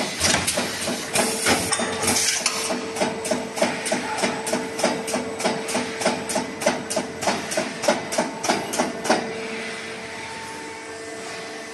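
A JBZ-500E hydraulic paper plate machine running, its mechanism clattering rapidly and evenly at about five knocks a second. About nine seconds in the clatter stops and a steady machine hum with a held tone remains.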